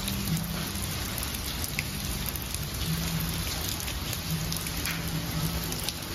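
Heavy rain pouring down: a steady hiss of rain falling on surfaces, with a low hum coming and going underneath.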